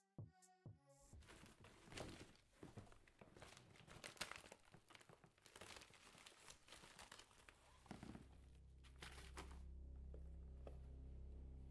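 A shipping mailer being torn open and crinkled while its contents are pulled out: dense irregular crackling and tearing that lasts about seven seconds. Near the end a low steady hum comes in, with a few light clicks as the small box from inside is handled.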